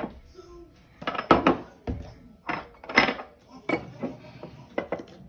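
A utensil clinking against a stainless steel mixing bowl while a liquid sauce is stirred, a series of irregular sharp knocks.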